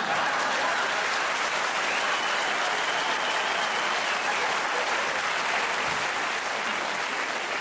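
Theatre audience applauding, a dense, steady clapping that starts suddenly and eases slightly near the end.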